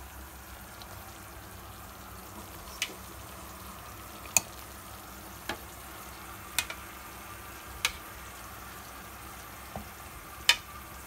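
Creamy mushroom sauce bubbling and sizzling steadily in a nonstick frying pan, with about half a dozen sharp clicks of tongs against the pan as pork steaks are laid back into the sauce.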